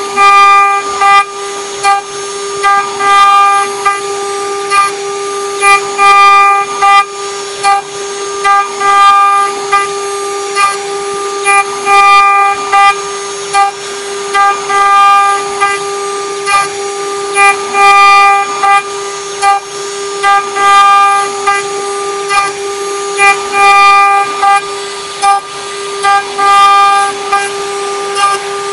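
CNC engraving machine's spindle running with a steady whine while a small end mill cuts into a copper mold. The cutting noise swells into loud, pitched bursts every second or so as the tool bites into the copper.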